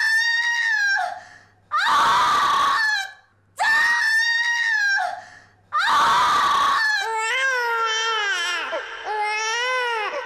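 A woman screaming in labour, four loud, high-pitched screams in a row. About seven seconds in they give way to a newborn baby's crying, two long wavering wails that rise and fall.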